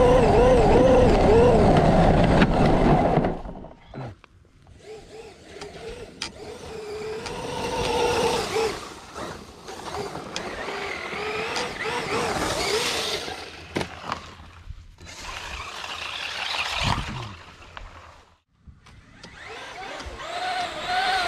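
Traxxas Unlimited Desert Racer RC truck running, its electric motor whining and wavering up and down in pitch with the throttle. It is loud for the first three seconds, then quieter, with several sudden short drop-outs.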